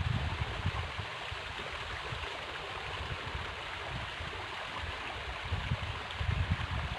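Steady rush of flowing river water, with low rumbling near the start and again toward the end.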